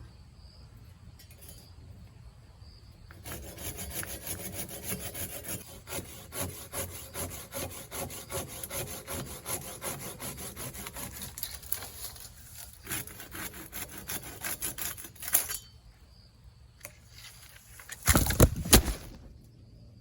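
Hand saw cutting through wood in quick, rhythmic back-and-forth strokes for about twelve seconds, then stopping. Near the end comes a loud, heavy crash.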